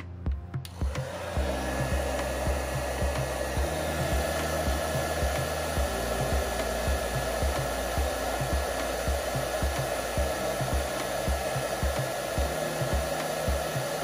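Hair dryer blowing steadily, switched on about a second in, with a faint steady whine in its rush of air. It is heating a phone's glued-in lower speaker to soften the adhesive so the speaker can be lifted out.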